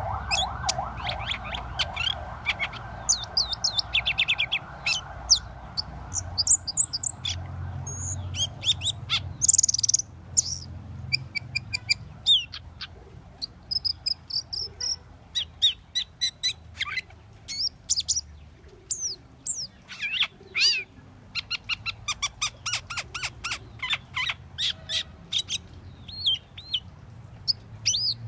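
Asian glossy starling singing: a fast, varied run of short high chirps, squeaky notes and brief whistles, with pauses between phrases.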